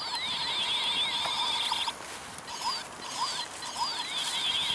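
Battery-powered toy bubble gun with its trigger held, its sound chip playing fast rising and falling electronic chirps. The chirps come in two runs with a short break about two seconds in.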